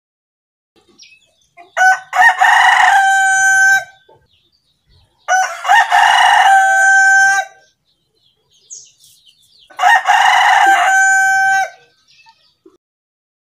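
Rooster crowing three times, a few seconds apart. Each crow lasts about two seconds and ends in a long held note.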